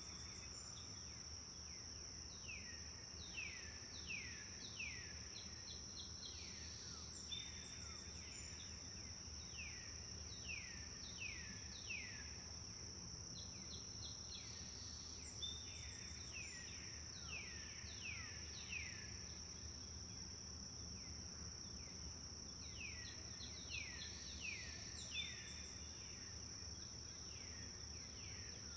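A songbird repeats a short song of several quick falling whistled notes every six or seven seconds. Beneath it runs a steady high-pitched insect drone and a faint low rumble.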